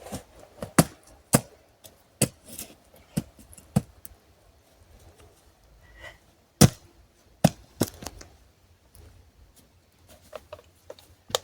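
Sharp, irregular knocks and snaps, about ten over several seconds with a pause in the middle, from chopping and poking at a doused campfire to check it for sparks.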